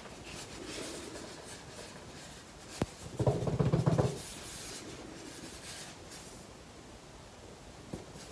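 Cardboard box handled on a wooden floor: soft rustling, a sharp click a little under three seconds in, then about a second of loud, fast juddering scrape as the box is slid across the wood. A lighter knock comes near the end.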